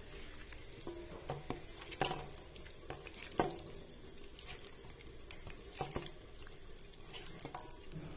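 Wet squelching of a bare hand mixing raw chicken pieces into a thick batter in a stainless steel bowl, with a few sharper slaps at irregular moments.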